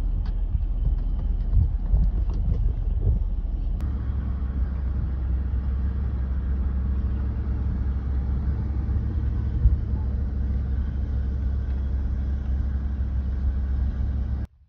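Steady low engine and cab rumble of a pickup truck, heard from inside the cab, with a few light knocks in the first few seconds. The sound shifts slightly about four seconds in and cuts off abruptly near the end.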